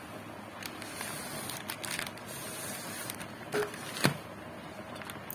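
Plastic chips packet crinkling as it is handled, with several sharp clicks and taps from the thin metal rods against it; the loudest click comes a little after four seconds in.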